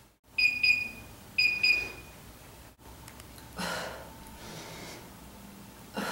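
Electronic interval timer beeping: two quick double beeps about a second apart, marking the start of an exercise interval. These are followed by two forceful exhales, one midway and one near the end, as she works through dips on parallel bars.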